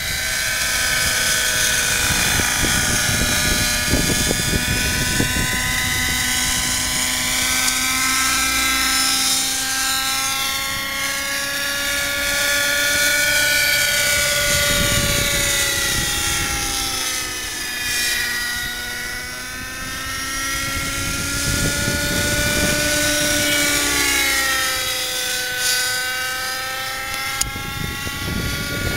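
X-Cell 90 RC helicopter's two-stroke glow engine and rotors whining in flight, the pitch sliding slowly up and down as it manoeuvres, dipping low about two-thirds through before rising again.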